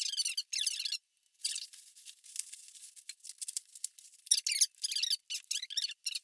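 Takeout food packaging being handled, crinkling and rustling in quick, irregular bursts.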